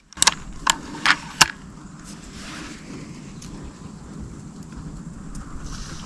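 Four or five sharp clicks and knocks in the first second and a half, over a steady low rumble that starts abruptly and runs on.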